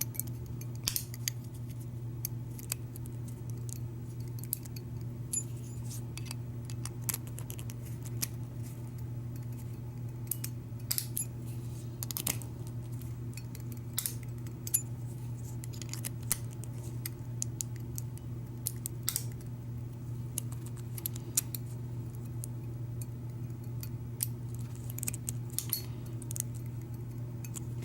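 Scattered small metallic clicks and scrapes of a thin shim being worked into a Schlage deadbolt cylinder while the key blank is eased out one pin position at a time, over a steady low hum.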